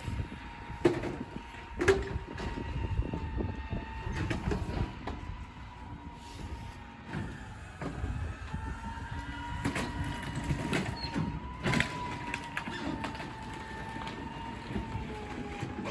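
Rear-loading garbage truck running, with a steady, slightly wavering whine over its rumble, while items are tossed into the rear hopper: scattered knocks and clatter, the sharpest about a second in, two seconds in, around seven seconds and near twelve seconds.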